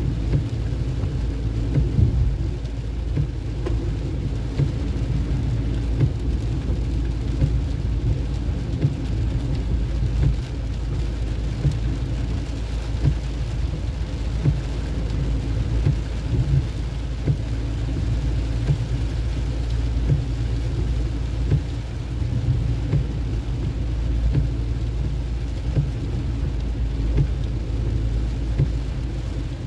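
Steady low rumble of a vehicle moving along a road, with wind buffeting the microphone throughout.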